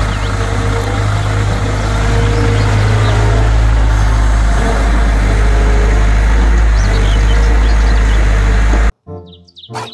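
Diesel engine of a Caterpillar M313C wheeled excavator running steadily as the machine digs soil and swings its bucket over a dump truck. It cuts off abruptly near the end, giving way to music with bird-like chirps.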